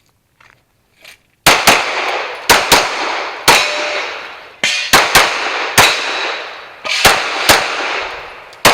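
Pistol shots fired in quick pairs, about a dozen starting about a second and a half in, each followed by a long echoing tail: a shooter firing a timed stage.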